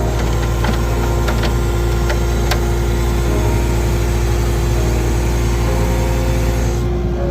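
Engine of a machine running steadily at a constant speed, with a few light clicks and knocks over it.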